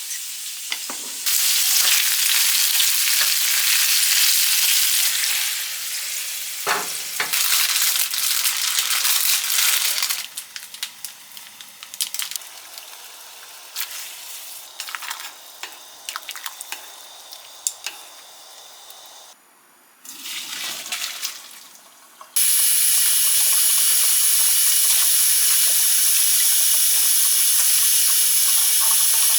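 Pork belly sizzling and spitting as it grills in a hot pan. Loud stretches of frying give way to quieter crackling in the middle, and a loud, very even hiss sets in about three quarters of the way through.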